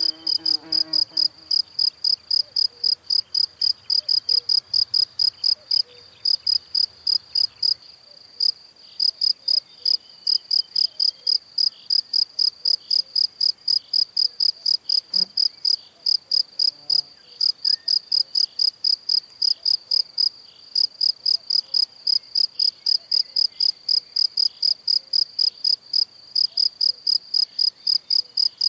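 Insect chirping: a regular high chirp repeated about three to four times a second, pausing briefly about 8 seconds in and again about 20 seconds in.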